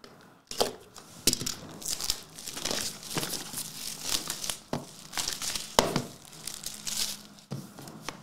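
Plastic shrink wrap being torn and peeled off a trading card hobby box, crinkling and crackling in irregular bursts. The loudest crackle comes a little before the end.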